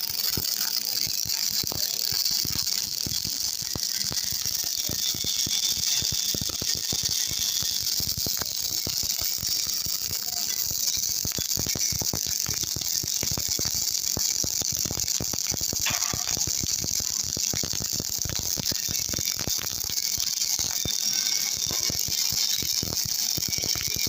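MIG welding arc crackling and hissing steadily, a dense irregular sizzle of short-circuit spatter that runs without a break.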